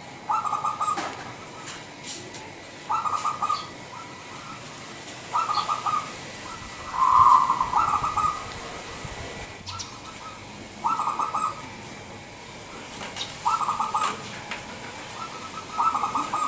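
Zebra dove (local Indonesian perkutut) singing its cooing song: a short phrase of rapid, rolling coos about every two and a half seconds, seven phrases in all, the one near the middle louder than the rest.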